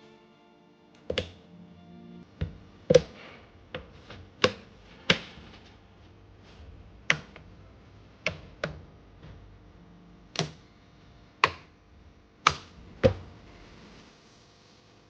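Sharp plastic clicks and taps, about a dozen at uneven intervals, as the laptop's bottom cover is pressed and snapped back into place. Faint background music runs underneath.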